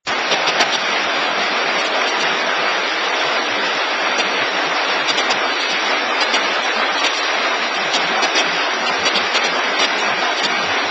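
Paper take-away box forming machine running: a steady, dense mechanical noise with faint scattered clicks.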